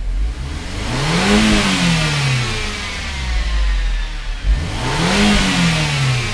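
The turbocharged 2.0-litre four-cylinder of an Audi A4 B7 revved twice while standing still, heard from inside the cabin. Each rev climbs and falls back to idle, and a loud intake hiss swells and fades with it; the engine breathes through a newly fitted Luft-Technik open-filter intake.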